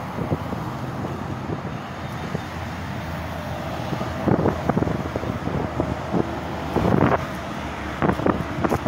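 Wind buffeting the microphone over a steady hum of road traffic, with several stronger gusts in the second half.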